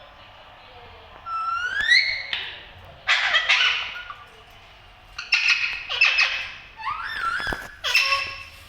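Indian ringneck parrot calling: a rising whistle about a second in, then a run of short, loud, harsh calls and a wavering whistle.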